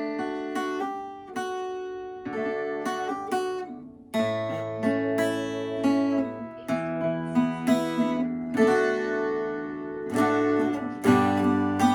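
Fender CD-140SCE twelve-string dreadnought acoustic guitar being played: picked notes and chords, then fuller chords with bass notes from about four seconds in.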